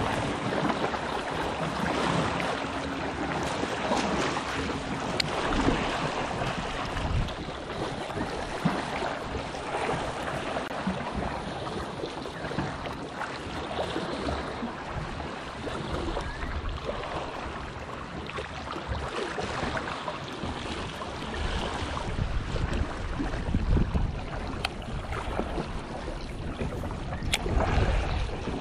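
Sea waves washing and splashing against breakwater boulders, with wind buffeting the microphone in low gusts.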